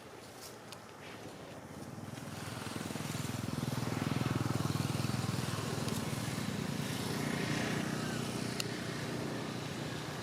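A motor vehicle's engine coming close, growing louder over a couple of seconds and then running on steadily.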